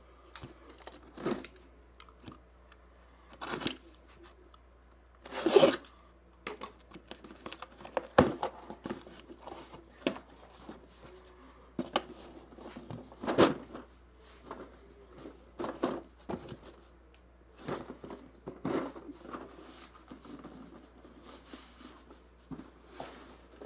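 Irregular tearing, crinkling and sharp clicks and knocks of packaging and objects being handled, likely from unpacking a box.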